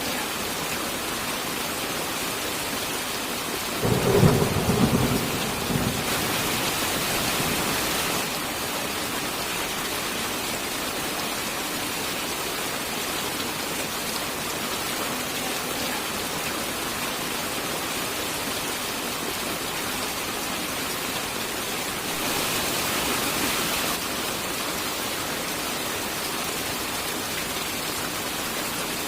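Steady heavy rain with a single thunderclap about four seconds in, a loud low rumble lasting under two seconds. The rain hiss swells briefly twice, right after the thunder and again later.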